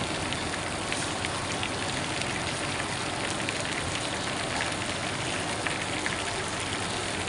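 Fish deep-frying in a wok of hot oil: a steady sizzle with dense crackling.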